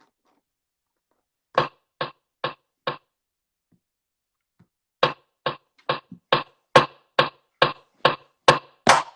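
Sharp knocks repeated at an even pace, a little over two a second: four strikes, a pause of about two seconds, then a steady unbroken run.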